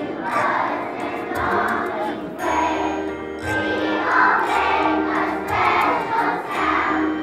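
A large group of kindergarten children singing together as a choir, in phrases.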